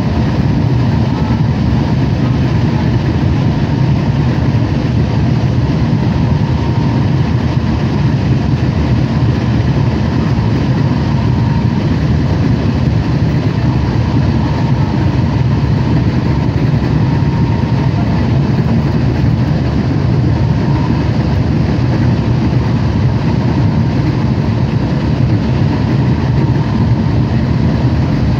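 Eurobahn regional train running at speed, heard from inside the passenger cabin: a steady, even running noise of the wheels on the rails and the train, with a faint steady tone above it.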